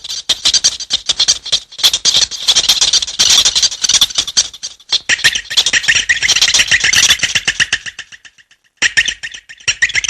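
A high-pitched screeching and chattering creature sound effect from a dark ride: a fast stuttering run of clicks that breaks off briefly about eight seconds in and then starts again.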